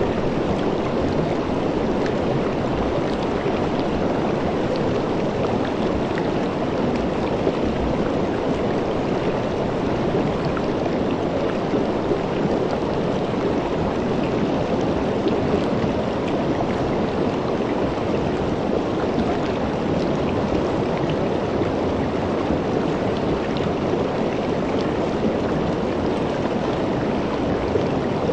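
Shallow river water rushing and rippling over rocks in a steady, even flow.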